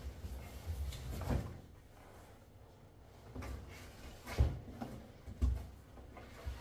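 Cardboard box and packing being handled and opened: irregular dull knocks and bumps with some rustling, the sharpest knock about four and a half seconds in.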